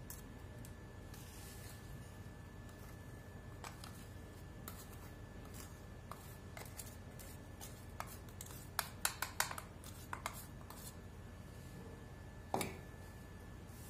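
Steel spoon scraping and tapping against a stainless steel mixer jar while powdery sugar premix is scooped out into a bowl: scattered light clicks, a quick run of taps about nine to ten seconds in, and one louder knock near the end.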